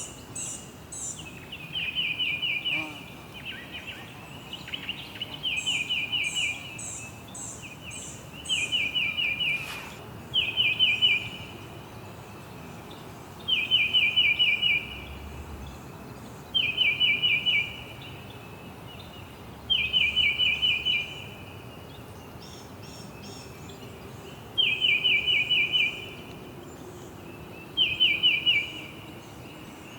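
A songbird singing the same short, rapid trill over and over, a phrase every few seconds. Another bird adds higher, fainter chirps now and then, over a steady background hiss.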